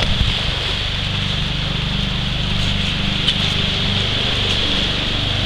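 Shallow river rapids rushing steadily, with a low steady hum underneath and a few light knocks about a second in.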